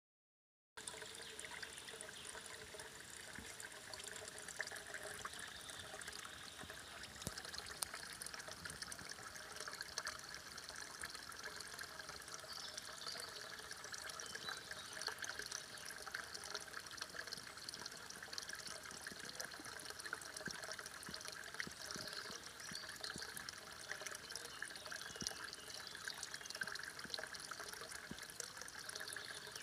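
Spring water trickling from a short metal pipe spout into a small pool below, a thin steady stream with small splashes where it hits the surface.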